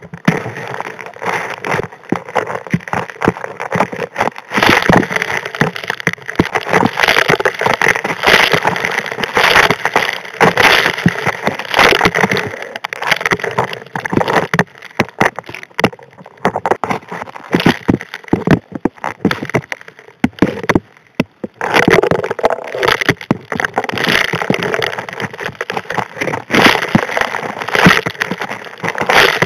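Gravel and small rocks clattering against the steel nozzle of a Model 625 HD P hand suction dredge as they are sucked in, heard underwater: a dense, continuous rattle of small impacts, with a brief lull about two-thirds of the way through.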